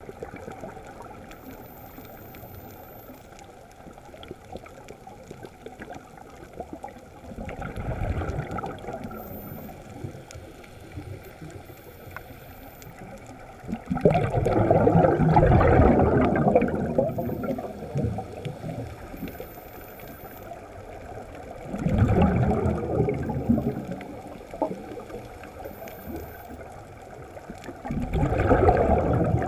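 Muffled underwater sound with four bursts of bubbling from snuba divers' regulators as they exhale, roughly every six to seven seconds. The burst about halfway through is the longest and loudest.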